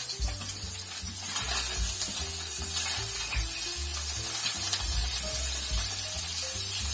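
Cooking oil sizzling steadily in a hot pan, with a few short clicks and scrapes, over background music with a steady bass line.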